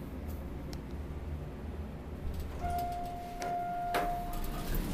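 Elevator car running with a low hum that dies away as it stops, while a steady electronic beep sounds for about two seconds, with two sharp clicks during the beep.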